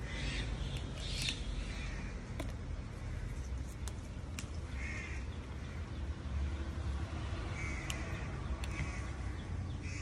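Harsh bird calls, each short, heard several times, over a steady low rumble with a few sharp clicks.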